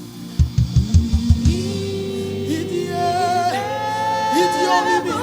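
Live gospel music from a church choir and band: a quick run of about six low drum hits, then a singer holding long notes over the band.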